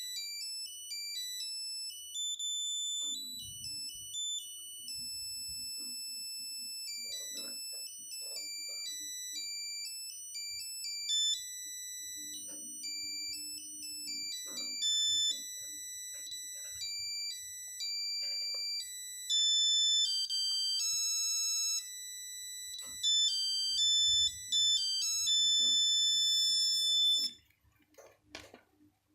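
Nokia 8210 mobile phone playing a monophonic ringtone: a melody of single electronic beeping notes, one at a time, stepping between pitches. It cuts off abruptly about two seconds before the end, followed by a couple of faint clicks.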